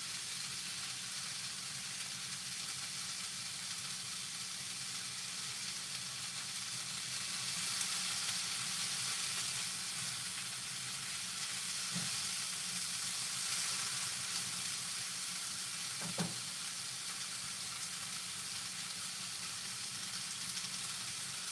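Onions, garlic, Scotch bonnet pepper, thyme and bell peppers sizzling steadily in a frying pan on low heat, a little louder around the middle. Two light knocks come, one just past halfway and one about three-quarters through.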